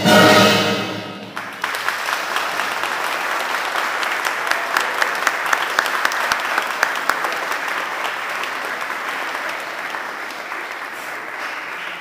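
A brass band's final chord, cut off about a second in, followed by a crowd clapping and applauding that slowly fades toward the end.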